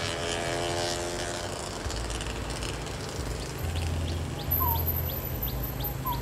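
Outdoor background: a passing engine's tone falling and fading in the first second over a steady low hum, then birds chirping twice and a faint regular ticking about three times a second.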